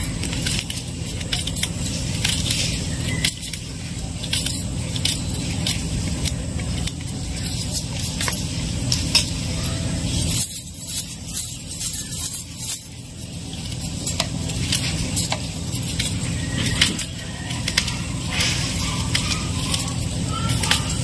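Stacked bangles jingling and a small knife clicking and crunching through bitter gourd as it is sliced into rounds by hand, many irregular short clicks over a steady low rumble.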